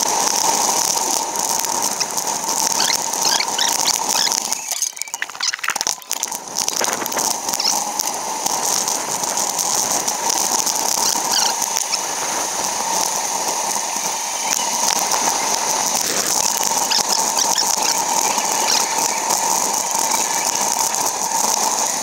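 Fast-forwarded sound of a bicycle ride: wind and road noise sped up into a high, hissy rush, dotted with quick squeaky chirps. The noise briefly drops away about five seconds in.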